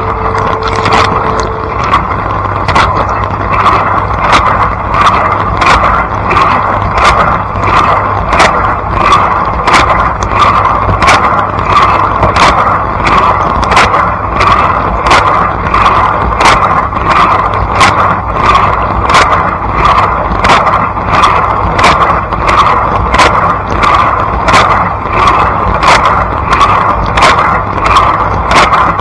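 Blanco dishwasher running its wash cycle, heard from inside the tub: a steady pump hum under water from the spinning spray arms sweeping past in a rhythmic swish, about three surges every two seconds.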